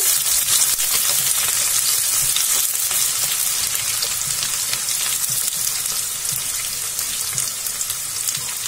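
Chopped onion sizzling and crackling in hot oil in a non-stick kadhai as it is fried toward golden brown, with a spatula stirring through it. The sizzle eases a little toward the end.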